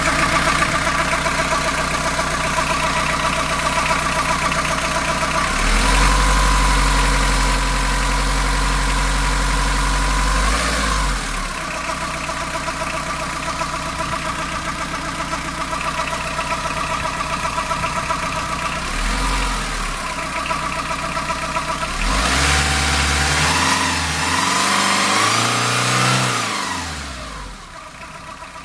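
Fiat Ducato van engine idling warm, with a steady high whine over the running, the noise from the belt side of the engine that appears only once it has warmed up and only at idle. The low engine note shifts twice, and the sound gets quieter near the end.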